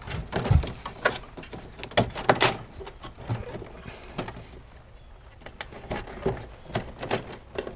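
Hands tucking electrical cables into a metal breaker panel: scattered clicks, taps and rustles as the wires knock against the box.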